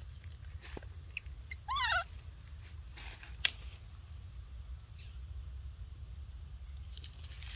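A short, high, squeaky animal call of a few quick wavering notes about two seconds in, then a single sharp click in the middle, over a steady low rumble.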